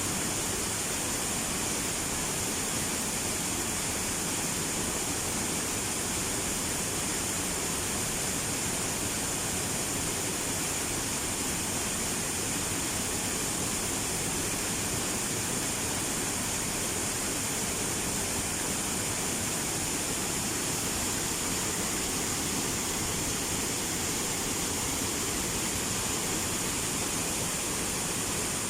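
Steady rushing of flowing water, with an even high hiss and no change in level.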